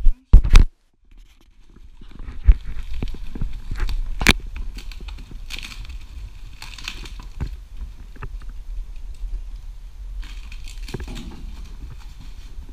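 Packaging being handled: plastic and cardboard crinkling and rustling, with scattered clicks and a few sharp knocks over a low rumble.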